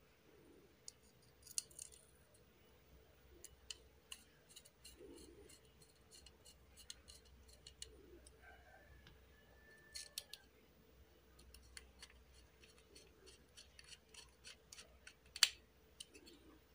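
Faint, scattered clicks and ticks of a small screwdriver turning tiny bolts into the case panels of an amplifier board kit, with one louder click near the end.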